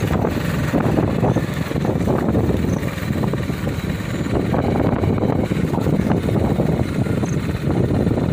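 A small engine running steadily, likely the motorbike the camera rides on, with wind rushing over the microphone.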